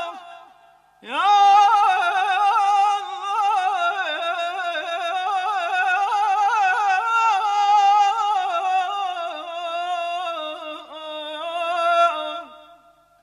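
Male Persian classical singer performing avaz: one long melismatic phrase with rapid pitch ornaments, starting about a second in after a short pause and dying away near the end.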